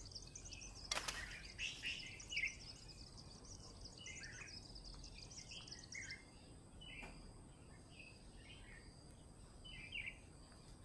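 Faint background of small birds chirping in short, repeated notes over a thin, high insect buzz, with one sharp click about a second in.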